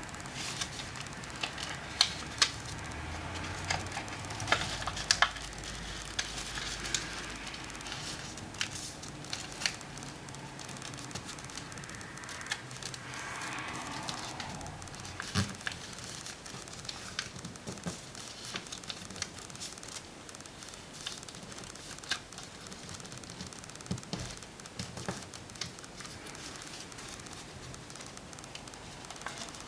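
A sheet of origami paper being folded and creased by hand: irregular crinkling and rustling, with sharp crackles as folds are pressed flat. A few louder crackles come in the first six seconds and another about fifteen seconds in, and a longer rustle comes about thirteen seconds in.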